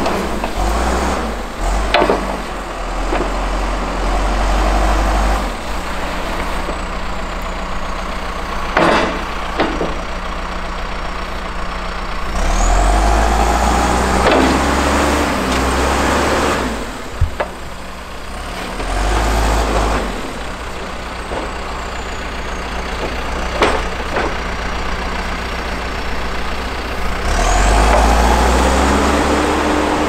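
John Deere backhoe loader's diesel engine running and revving up under load several times as the hydraulic arm and bucket work, with a few sharp clanks of the bucket and linkage.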